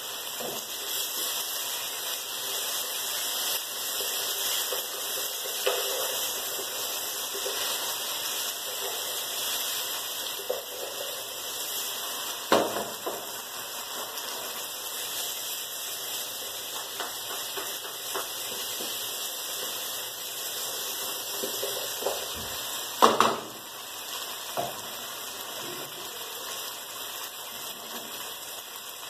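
Ribs frying in a pan on a gas stove, sizzling steadily, with a few sharp clinks of a cooking utensil against the pan, the loudest about twelve and twenty-three seconds in.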